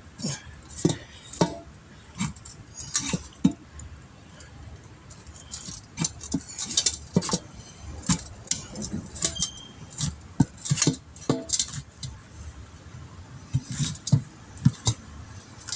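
Irregular sharp metallic clinks and knocks, like hand tools striking and levering against a steel wheel rim while a tire's bead is worked off the rim for a puncture repair.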